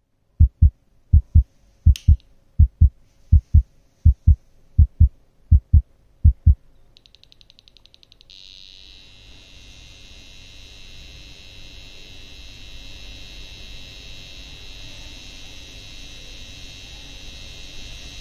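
Heartbeat-like thumps, low double beats about every 0.7 s, for the first six and a half seconds, with one sharp click about two seconds in. From about eight seconds a steady high-pitched whine with a low hum beneath it sets in and holds while the 386 PC powers up and its BIOS counts the memory.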